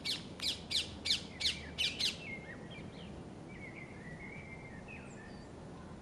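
A bird's harsh calls repeated rapidly, about four a second, which stop about two seconds in. Faint thin chirps from small birds follow.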